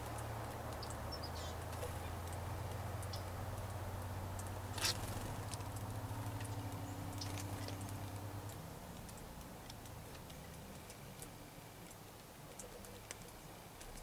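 Outdoor ambience: a low, steady rumble fades away about two-thirds of the way through. Over it come a few faint, high bird chirps and light clicks, with one sharp click about five seconds in.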